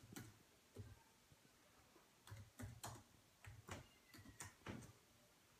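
Faint typing on a computer keyboard: a dozen or so short, irregular key clicks.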